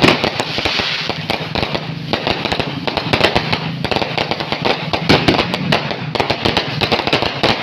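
Fireworks going off in a dense, continuous barrage of rapid cracks and pops, with no break.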